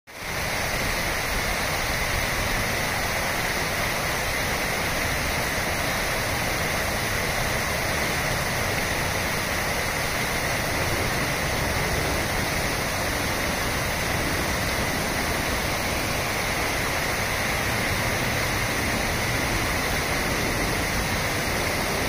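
Steady rush of water from a tiered waterfall and the shallow rapids over rocks below it. It fades in at the very start and then holds even throughout.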